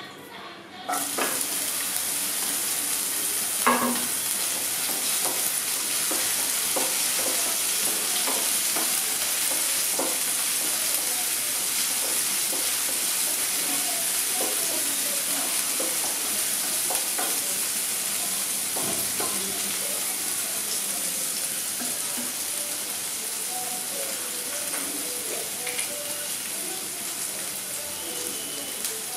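Hot oil bursts into a loud sizzle as chopped onions and green chillies go into a non-stick frying pan about a second in. They then fry with a steady sizzle while a wooden spatula stirs them and knocks against the pan now and then, loudest near the fourth second.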